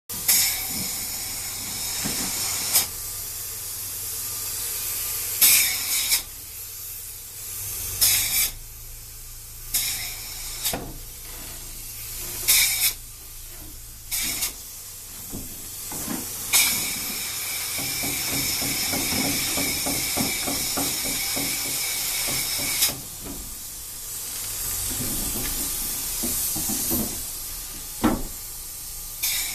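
Spray foam gun hissing as it sprays closed-cell polyurethane foam onto roof decking, in a string of on-off bursts. Most are short pulls of the trigger, with one long spray of about six seconds past the middle, over a faint low steady hum.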